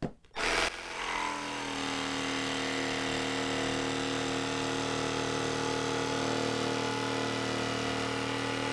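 Milwaukee M12 cordless jig saw (2445-20) with a down-cut laminate blade starting up and cutting through a laminate board, the motor running at a steady pitch through the cut while pushed hard into the material.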